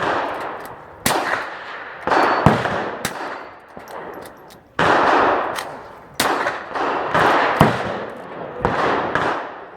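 Rifle shots fired one at a time at uneven intervals, about eight in all, roughly one to one and a half seconds apart, each followed by a long echoing tail.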